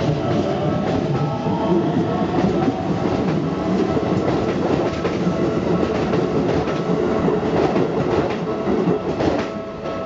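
Hokuso Railway 9800-series electric train passing close by over a level crossing, its wheels clacking over the rail joints and crossing, with the crossing's warning bell ringing steadily underneath. The train sound drops away near the end as the last car clears the crossing.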